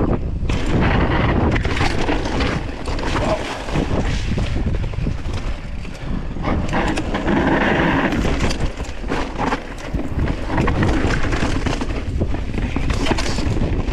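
Mountain bike riding over granite slab and rough dirt trail: wind rumbling on the camera's microphone, knobby tyres rolling, and the bike rattling and clattering over bumps and rocks in quick irregular knocks.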